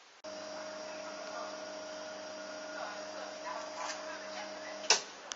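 Steady electrical hum holding several fixed tones, starting abruptly a moment in. A few faint ticks follow, then one sharp click shortly before the end.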